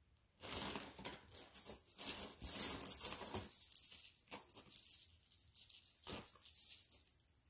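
Hands rummaging through plastic bags and packaging in a box of bagged jewelry: an irregular run of rustling and crinkling that starts about half a second in.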